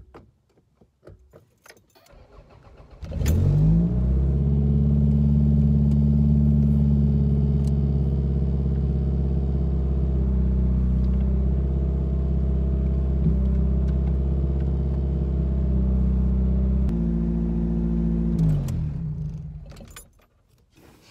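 A few clicks, then a 1990 Toyota Celica GT-S's four-cylinder engine cranks briefly and catches about three seconds in, starting on a freshly swapped battery. It idles steadily, its note shifts lower a few seconds before the end, and then it is switched off and runs down.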